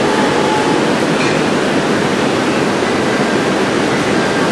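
JR 701 series electric train pulling out of a station platform: steady, loud running noise from its wheels and running gear as the cars roll past. A faint high whine sounds in the first second.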